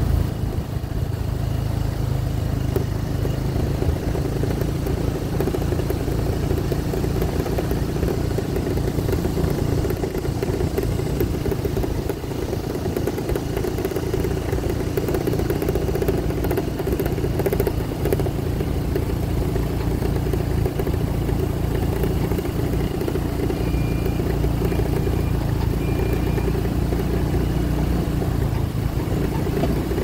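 Small motorbike engine running steadily at low speed while ridden, with rumbling road and wind noise.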